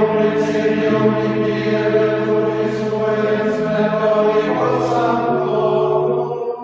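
Male choir of Benedictine monks singing Latin plainchant in unison at Vespers, over steady held low notes that change in steps, typical of a pipe organ accompaniment. The voices stop near the end while the held notes sound on more softly.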